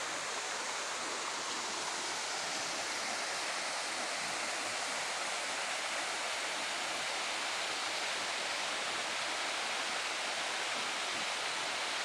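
Waterfall cascading in several streams over large boulders: a steady, even rush of water.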